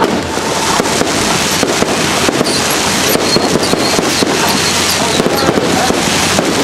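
Aerial fireworks bursting and crackling, a dense run of sharp cracks and pops.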